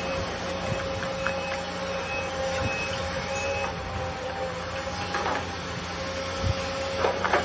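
Sumitomo SH210 hydraulic excavator running steadily while it works, a constant engine drone with a steady hydraulic whine and short repeated high tones. A few sharp knocks come near the end.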